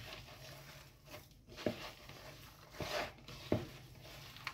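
Hand kneading and squeezing a mash of boiled potato, onion and herbs in a plastic bowl: faint, irregular squishing and rustling strokes, a few of them louder.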